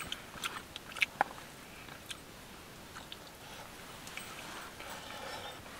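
Quiet sounds of two people eating by hand: chewing, and small clicks and scrapes of fingers and food in bowls, most of them in the first second or so.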